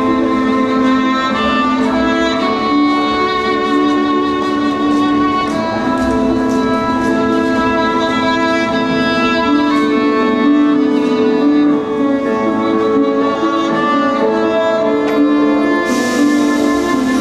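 Solo cello bowed, playing a melody of held notes. A hiss comes in near the end.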